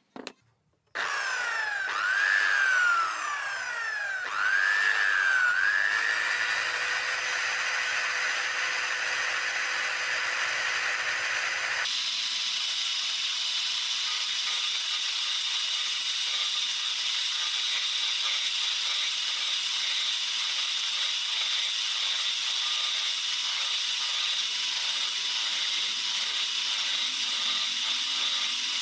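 Electric drill motor running, driving a homemade wood lathe. Its pitch dips and recovers a few times in the first seconds, then holds steady. About twelve seconds in the sound changes abruptly to another steady motor whine.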